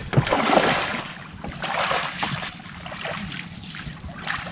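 Water sloshing and splashing as someone wades through shallow water, in uneven surges that are loudest near the start and again about two seconds in.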